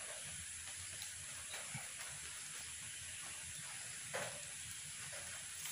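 Faint scrapes and clicks of wire being twisted by hand around a bamboo strip, over a steady background hiss; a slightly louder scrape comes about four seconds in.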